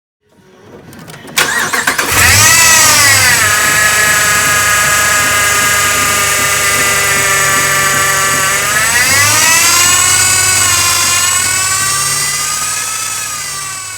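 A 2011 Ram 1500's 5.7-litre Hemi V8 cranks and starts about a second and a half in, flares up, then settles to idle. A loud high whine rides over the engine, rising and falling with a blip of the throttle about nine seconds in. The whine is the sign of a worn idler pulley bearing; a new belt, a power steering flush and a new power steering pump had not cured it.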